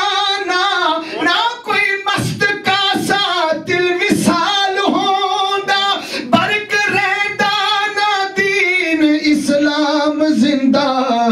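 A man singing an Urdu devotional salam unaccompanied into a microphone, holding long wavering, ornamented notes. The melody steps down to lower notes near the end.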